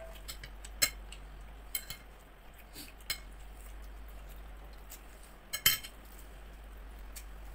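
A metal spoon clinking against a ceramic soup bowl, about six short separate clinks, the loudest pair about five and a half seconds in.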